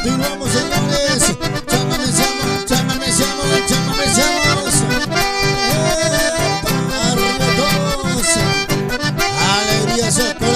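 Live chamamé played on a button accordion carrying the melody, with strummed acoustic guitar keeping a steady dance rhythm; no singing.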